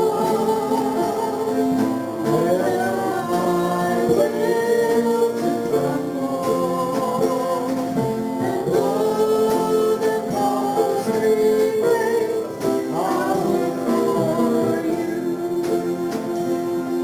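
A worship song sung by voices with guitar accompaniment, held notes sliding from one pitch to the next.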